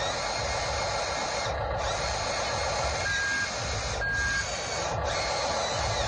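Small electric drive motors and gearboxes of an RC wheel loader whirring steadily as it pulls against an RC excavator on a tow line. Two short high beeps come a second apart near the middle.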